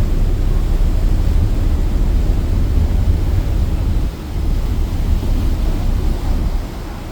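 Wind buffeting the microphone, a heavy uneven low rumble with a faint hiss above it, easing briefly about four seconds in and again near the end.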